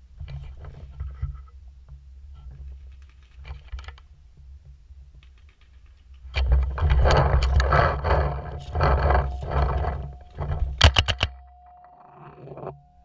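Handling noise and the rustle and rattle of the player's gear, loudest from about six to ten seconds in while the player moves between bunkers. Then a quick run of four sharp cracks just before eleven seconds in.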